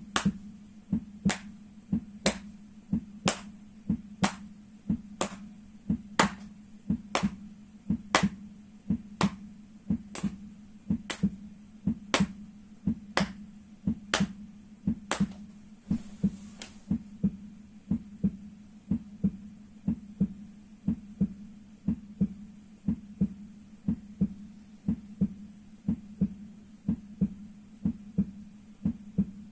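Steady, heartbeat-like dull thumping, about two beats a second, kept up evenly throughout. Sharp clicks fall about once a second through the first half and then stop.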